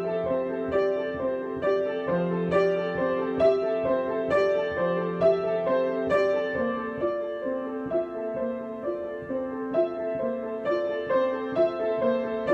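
Solo piano improvisation: a gentle, steadily repeating broken-chord figure, a note struck every third of a second or so over held lower notes.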